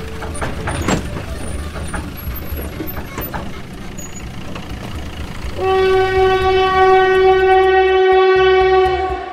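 Low vehicle rumble with a few sharp knocks, then a long, loud, steady horn blast starting about five and a half seconds in and cutting off near the end.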